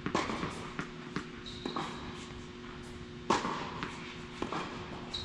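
A tennis rally: sharp racket-on-ball hits about every second and a half, the loudest about three seconds in, with a lighter ball bounce between, over a steady low hum.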